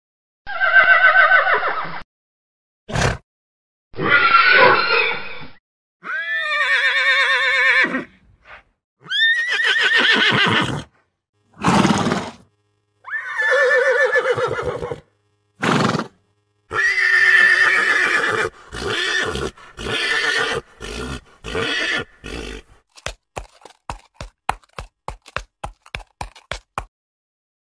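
Horses neighing and whinnying, about seven separate calls one after another with shorter snorting bursts between them. Near the end comes a quick, even run of hoofbeats, about four a second.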